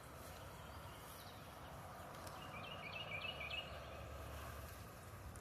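Faint outdoor background noise with a short run of high, quick bird chirps about two and a half seconds in, lasting around a second.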